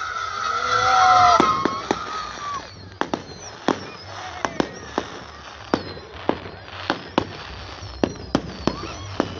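Fireworks going off: whistling, hissing rockets for the first couple of seconds, then a run of sharp, irregular bangs and crackles.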